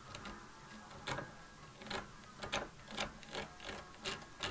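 Double-ended scriber's hard tip scratching lines into the steel head of a hammer held in a vise. About eight short, faint scrapes, starting about a second in and coming closer together toward the end.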